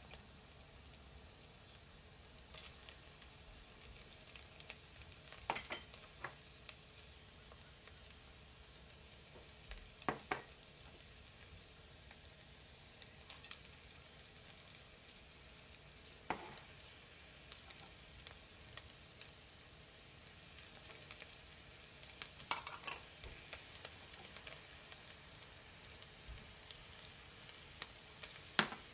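Ground beef and onion frying in a pot with a faint, steady sizzle. A few sharp knocks and clinks every few seconds as chopped vegetables, garlic, tomato paste and spices are tipped in from glass bowls.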